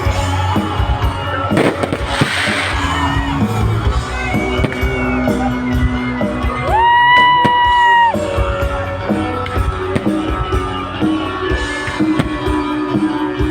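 Loud amplified music with a long held high note about halfway through, mixed with the bangs of fireworks going off in the first few seconds and crowd noise.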